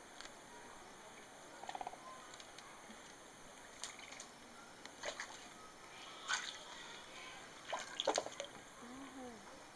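A red-crowned crane dunking and shaking a fish in shallow water to break it up: a few short, sharp splashes and drips, loudest near the end.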